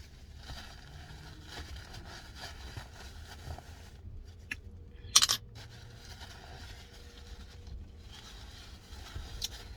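Low, steady rumble inside a car, with one short scrape about five seconds in and a few faint clicks.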